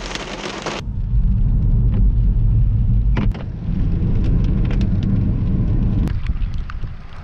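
Rain hissing on a car for under a second, then an abrupt change to a car driving on a wet road heard from inside the cabin: a steady low rumble of tyre and engine noise with scattered light ticks.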